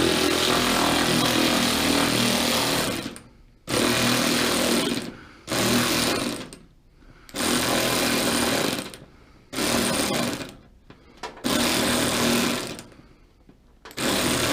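Battery-powered impact wrench hammering in about seven bursts of one to three seconds each, short pauses between them, its battery nearly flat.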